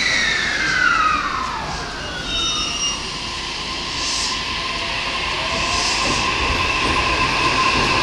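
JR East E233-series electric multiple unit starting off from a standstill, its inverter and traction motors whining as it accelerates. Tones glide down in pitch over the first two seconds, then settle into a steady whine that rises slowly, over a haze of running noise.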